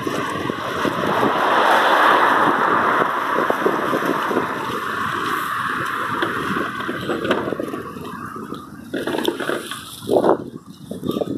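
Pancake ice floes drifting down a river, scraping and knocking against one another over flowing water: a dense crackle of small clicks, with a few louder knocks near the end.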